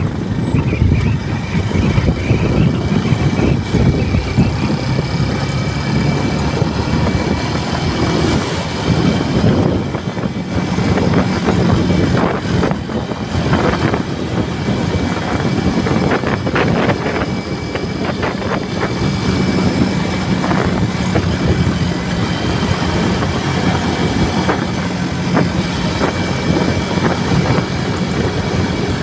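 Motorcycle riding at speed: heavy wind buffeting on the microphone over a steady engine drone and road noise.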